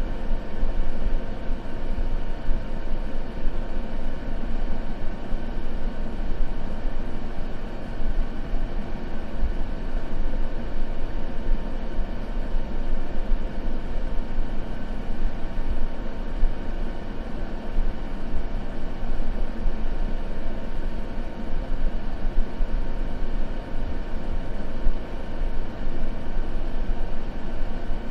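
Steady white-noise track, a constant even rush weighted toward the low end, with a faint steady hum running through it.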